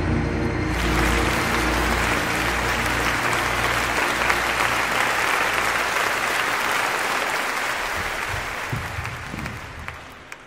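Theatre audience applauding. The clapping swells in about a second in and dies away toward the end, over a low steady drone in the first half.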